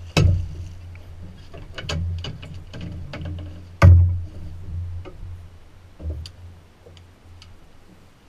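Sharp knocks and clicks against the boat, two loud ones about four seconds apart with lighter taps between, as a hooked yellowfin tuna is gaffed at the side. A low steady hum runs under them.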